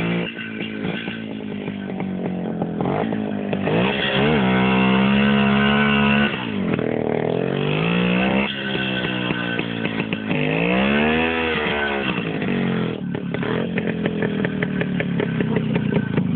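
Jawa 175 two-stroke motorcycle engine revving over and over, its pitch rising and falling, held high for about two seconds some four seconds in. Near the end it drops to a rougher, uneven run.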